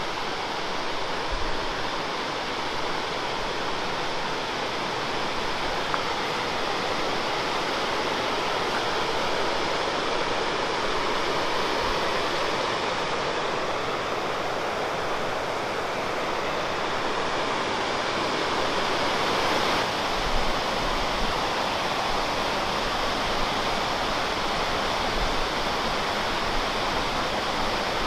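Waterfall pouring and splashing into a mountain stream: a steady, continuous rush of water.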